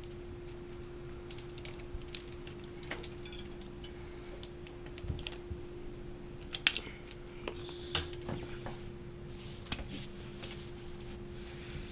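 Irregular light clicks and taps of small metal parts and hand tools being handled while fitting a bicycle derailleur, over a steady low hum. The clicks come thickest and loudest in the middle.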